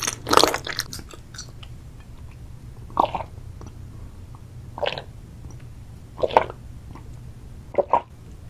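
Close-miked mouth sounds: a chewing sound just after the start, then four gulps while drinking from a glass, about one every second and a half.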